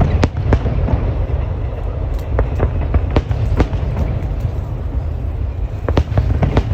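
Aerial fireworks bursting: a run of sharp, irregularly spaced bangs and cracks over a continuous low rumble.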